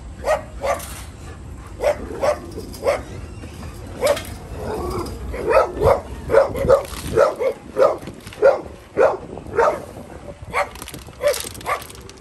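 A dog barking repeatedly in short, sharp barks, which come fastest and loudest in a quick run about halfway through, then carry on more spaced out.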